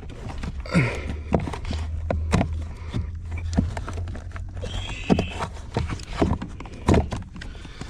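Irregular clicks and knocks of hands handling wiring and plastic trim under a car's dashboard, over a low steady hum.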